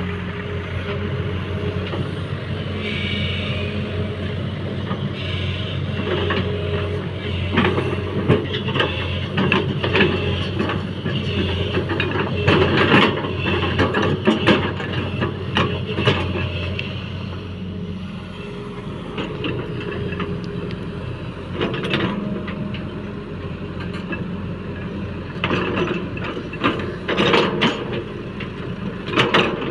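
JCB 3DX backhoe loader's diesel engine running steadily under work, with repeated knocks and clanks that come thickest in the middle and again near the end.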